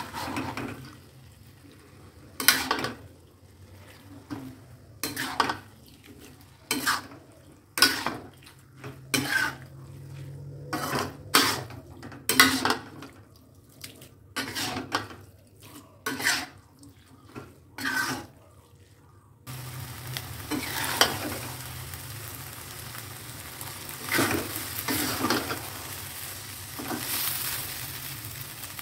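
Spatula scraping and tossing flat rice noodles in a wok: short clattering strokes, roughly one a second. About two-thirds of the way in, a steady sizzle of frying sets in under the continued stirring.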